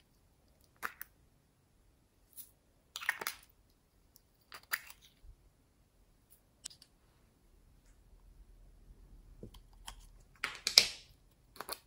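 Small hard plastic containers being handled and pulled open: a series of sharp plastic clicks and taps a few seconds apart, the loudest a short scraping rattle near the end.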